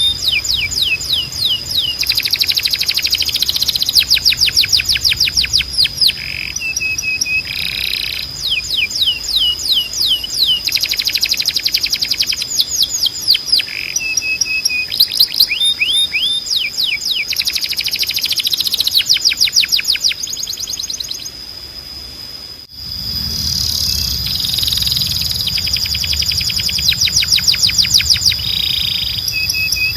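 Spanish Timbrado canary singing: fast trills of rapidly repeated notes in phrases a second or two long, with short held notes between them. The song drops out briefly about 22 seconds in.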